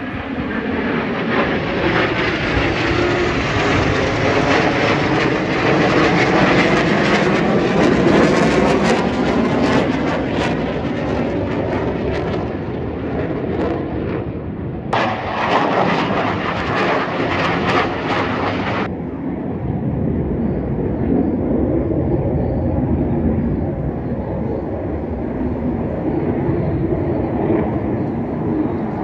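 Jet noise from T-50B trainer jets flying overhead in formation: a loud, wide rushing sound with a sweeping tone as they pass. A few seconds past the middle there is a brighter burst that starts and stops abruptly, and then a duller, lower rumble as the jets draw away.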